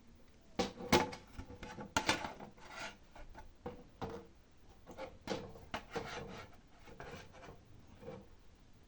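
Hands handling a hard disk drive and its small mounting screws: irregular light clicks and taps, with rubbing scrapes in between.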